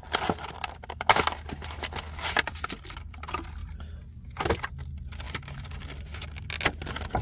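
Handling and unwrapping a trading-card trial deck: irregular rustling, crinkling and small clicks of plastic wrap, cardboard box and cards, over a faint steady low hum.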